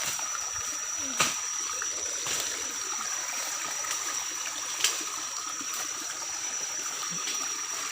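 Water of a small forest waterfall running steadily, a continuous rush and trickle, with a steady high-pitched whine above it. Two sharp clicks, about one second in and again near five seconds.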